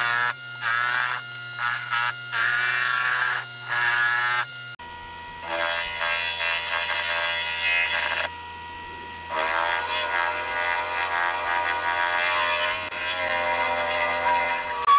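Small benchtop metal lathe running, its motor buzzing while the cutting tool turns down a metal part. The sound changes abruptly about five seconds in, the low hum dropping in pitch.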